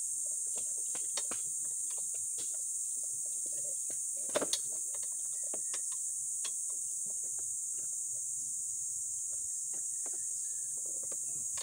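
A steady high-pitched insect chorus, with scattered light clicks and taps of metal parts being handled on a motorcycle's front end and one sharper knock about four seconds in.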